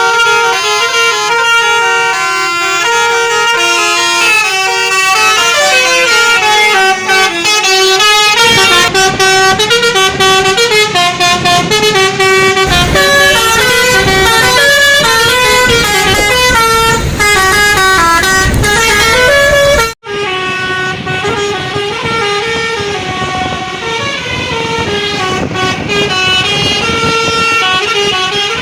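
Indonesian bus 'telolet basuri' multi-tone air horn playing a melody, its notes stepping up and down several times a second. A low rumble joins underneath from about 8 seconds in; the sound cuts out for an instant about 20 seconds in, then the horn tune carries on.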